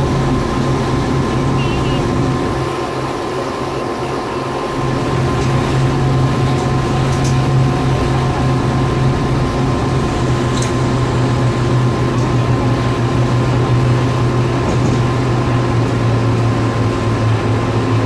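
Passenger ferry's engines running steadily under way: a loud, constant drone with a low hum.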